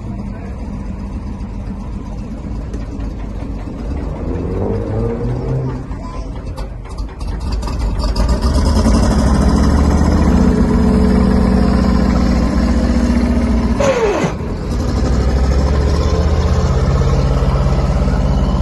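Alvis Stalwart amphibious truck's Rolls-Royce B81 straight-eight petrol engine revving as the truck drives down a slipway into the water and swims off. The engine gets louder about eight seconds in, with a brief falling whine and a dip near fourteen seconds.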